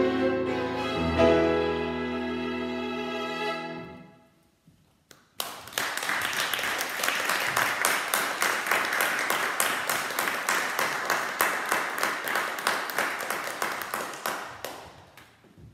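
Violin and grand piano end a piece on a held final chord that dies away. After a short silence an audience applauds for about ten seconds, fading out near the end.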